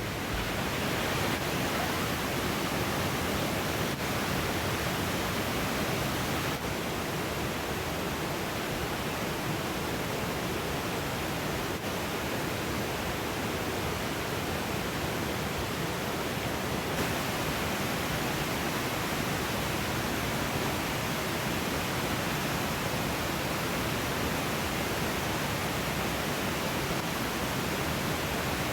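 Mountain stream rushing steadily over rocks, an even wash of water sound with no breaks.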